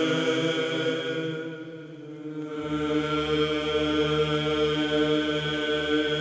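Slow chanting with long held notes over a steady drone. It fades briefly about two seconds in, then comes back with a deeper drone underneath.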